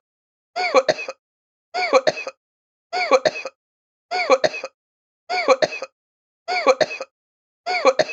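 A short human cough, the same recording repeated seven times at even spacing about every 1.2 seconds, with dead silence between.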